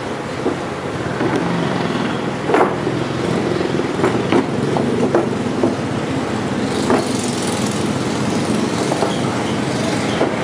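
A few light wooden knocks as laminated shelf boards and side panels are handled and set down on a workbench, over a steady low rumbling background noise.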